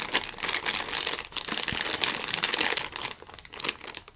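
Plastic packaging bag crinkling as it is handled, a dense irregular crackle that eases off after about three seconds into sparser crackles.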